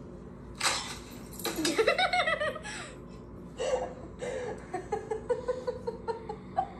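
A person laughing, with a quick run of high giggles about a second and a half in.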